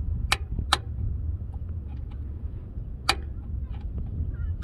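Three sharp clicks, two close together near the start and one about three seconds in, from tools and parts knocking while a mechanical fuel pump is being fitted to the engine, over a steady low rumble.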